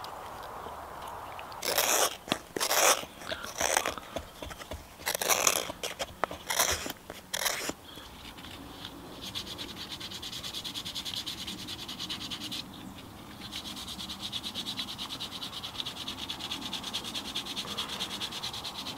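Hand-working a carved wooden spoon: a few loud scraping strokes over several seconds, then fast, steady back-and-forth rubbing of sandpaper on the wood, with a brief pause about two-thirds through.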